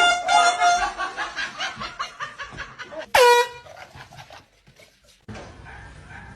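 Air horn blasts. The first blast runs over from just before and ends about a second in. A second, short blast comes about three seconds in, starting high and dropping quickly to a steady note. Between the blasts there are rapid, even pulses of laughter.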